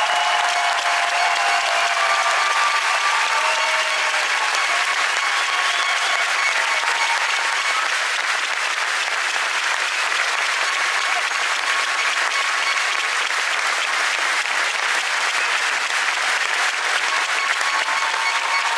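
Large crowd applauding steadily without a break, with voices calling out here and there above the clapping.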